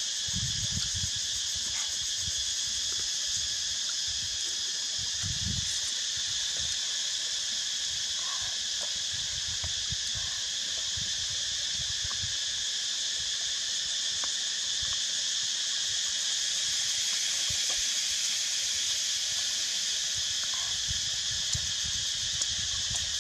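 Steady, high-pitched chorus of insects droning without a break, with a few faint clicks now and then.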